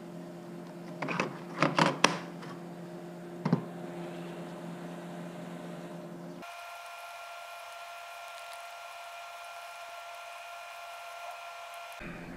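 A few sharp plastic clicks and taps about one to two seconds in and again near three and a half seconds, as a small plastic cup of epoxy is handled and stirred with a wooden stir stick. A steady workshop hum runs underneath, changing abruptly to a thinner, higher hum about halfway.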